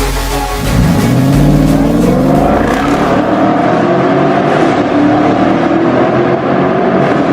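Mercedes-AMG S63 W222's M157 5.5-litre twin-turbo V8 heard through an RES stainless-steel valved catback exhaust, accelerating on the road: the exhaust note climbs in pitch over the first couple of seconds, then holds high.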